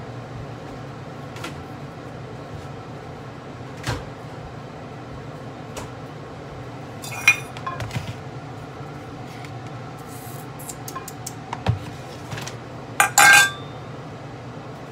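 Kitchen clatter of cookware being handled: a metal pot lid and a mixing bowl knocking and clinking a few times, the loudest clatter near the end, over a steady low hum.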